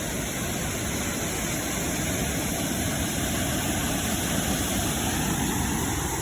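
Water of a small waterfall rushing, a steady noise weighted to the low end.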